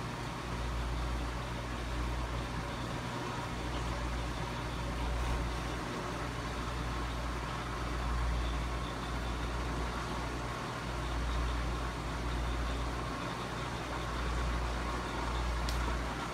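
Steady hum and water hiss from the running aquarium's filter and pump, with a low rumble that swells and eases every second or two.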